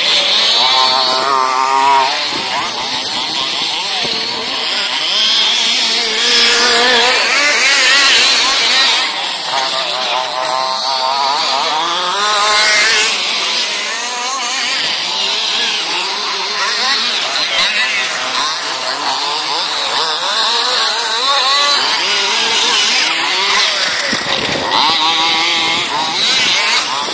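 Several large-scale RC off-road buggies with small two-stroke petrol engines racing on a dirt track, their engines buzzing and revving up and down over and over as they accelerate and brake through the corners.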